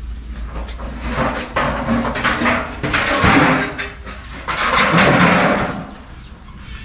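A corrugated metal sheet being shifted and dragged, giving two long spells of scraping noise, one from about a second in and one near five seconds.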